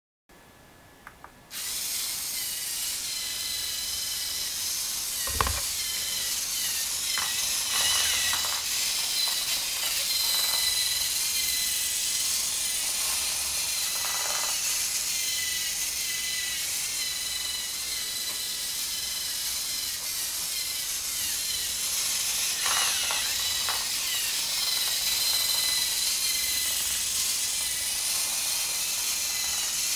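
LEGO Mindstorms NXT servo motors and their gear trains whining as a line-following robot drives along, the pitch wavering up and down as the motors change speed to steer along the line. The whine starts about a second and a half in, and a single knock sounds about five seconds in.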